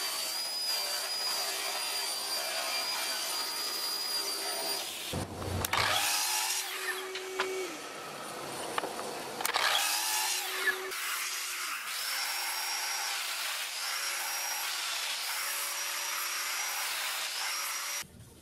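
Woodworking power saws cutting pine boards for door parts, with dust extraction running. First a table saw rips a board in one long steady run, then a mitre saw whirs up and cuts in several shorter runs. The sound cuts off suddenly near the end.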